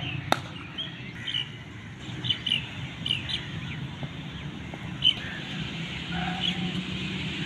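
Birds chirping in short, scattered calls throughout, over a steady low background hum. About a third of a second in comes one sharp crack, a cricket ball struck by a bat in the nets.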